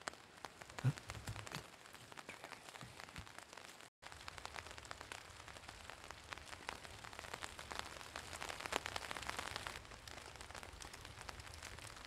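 Sleet and rain falling in a forest, a dense, faint patter of small ticks, with a louder knock about a second in. The sound breaks off for an instant about four seconds in.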